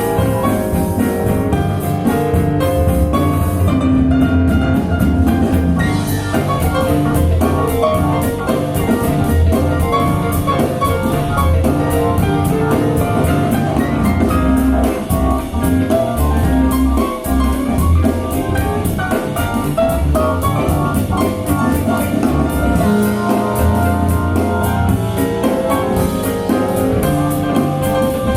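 Music with a steady drum beat played back through a pair of JBL Studio 590 floor-standing speakers with compression-horn tweeters, heard in the room.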